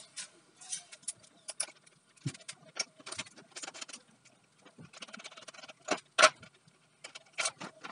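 Irregular light clicks and clinks of metal battery cables, terminal lugs and hardware being handled while lead-acid batteries are rewired from series to parallel.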